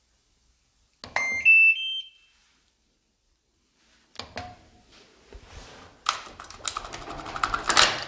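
A top-loading washing machine's power-on chime, a short melody of electronic beeps, about a second in. From about four seconds in come clicks, a short beep and a rattling clatter as the machine starts to run.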